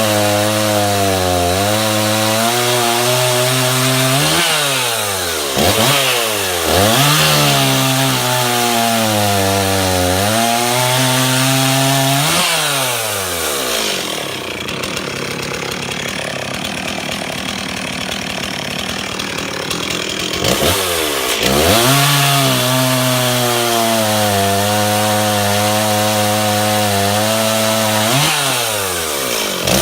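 Stihl MS 360 Pro two-stroke chainsaw, with an 18-inch bar and .325 chain on a 9-tooth rim sprocket, running at high revs with a wavering pitch, as when cutting wood. The revs dip sharply a few times. Around the middle the engine falls away for several seconds, then screams back up to full revs.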